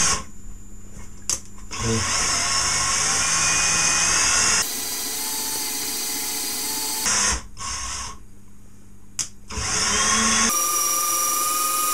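A small power tool whirring in several bursts of steady running, each starting and stopping abruptly, the longest from about two seconds in and another near the end.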